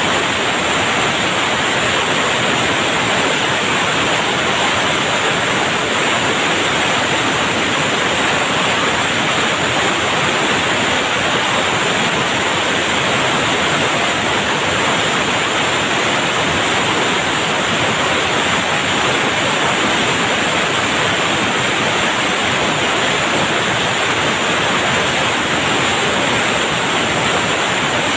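Steady, even hiss of gas rushing through the unloading line and valves of a liquid oxygen tank trailer during unloading, unchanging throughout.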